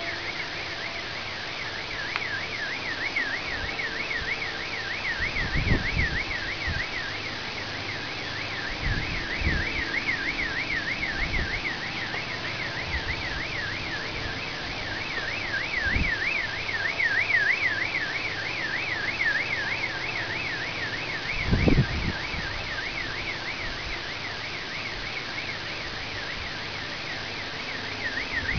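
Car alarm siren warbling rapidly up and down without a break, over a steady hiss, with a few dull low thumps, the loudest about three-quarters of the way through.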